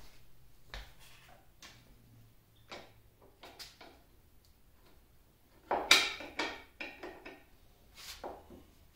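Hand tools clinking and knocking on the metal cross slide of an old lathe being taken apart. A string of separate clicks and clanks, the loudest a cluster of ringing clanks about six seconds in.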